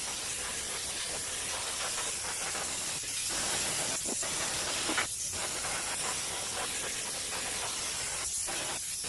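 Compressed air hissing steadily from a compressor-fed air nozzle, with a few brief dips and a small click about five seconds in.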